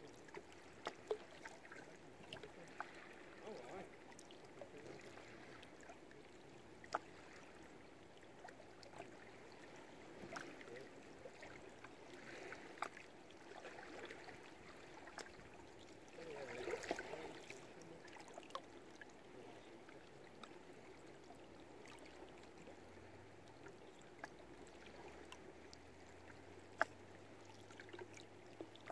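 Faint water lapping against moored boats, with scattered sharp clicks and knocks and a brief louder stir a little past halfway.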